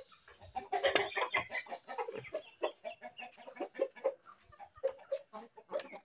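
Hens clucking in many short, irregular calls.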